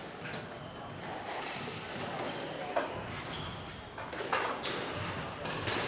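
Squash ball struck by a racket and rebounding off the court, a few sharp knocks a second or so apart in the second half, over the background noise of a squash hall.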